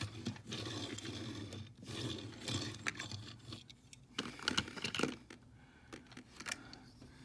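Rustling and scraping of hands handling small die-cast toy cars and their plastic storage case, with several sharp little clicks in the second half.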